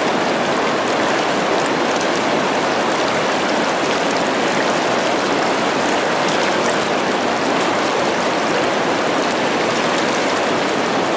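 River rapid rushing steadily: white water pouring over and around rocks.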